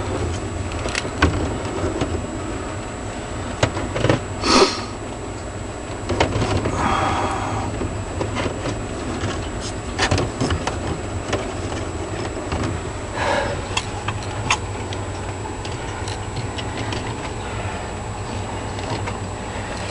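Scattered light knocks, clicks and rustles of eggs being handled and moved by hand in an incubator, over a steady low hum.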